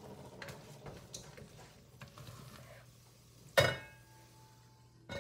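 Wooden spoon stirring and scraping thick tomato paste in an enamelled cast-iron Dutch oven, faintly. About three and a half seconds in comes a single loud clank of cookware with a short ring.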